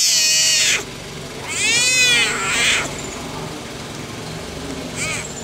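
Leopard cub calling: three harsh, high cries. The first breaks off just under a second in, the second is longer and rises then falls in pitch, and a short third one comes near the end.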